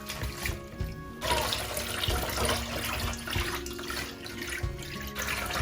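Water running from a kitchen tap into a sink, splashing through eru leaves in a colander as they are rinsed, with background music.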